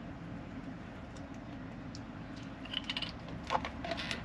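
Small plastic clicks and taps from handling a plastic water bottle and a small bottle-top humidifier head being fitted onto it, a few clicks bunched together near the end, over a steady low hum.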